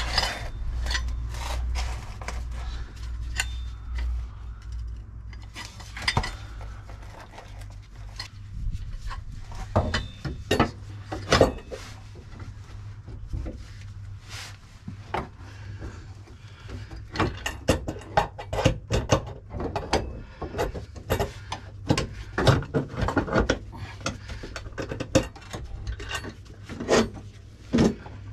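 Irregular metallic clinks, knocks and rattles of bolts and hand tools against the van's underside as an air-suspension bellows is worked into place and its top bolts are lined up and done up. The clicks come in denser runs in the second half.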